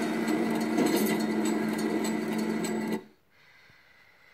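Small geared electric motor in a model boat's deck animation, running with a steady whir and quick regular ticking, then stopping abruptly about three seconds in and leaving only a faint hum.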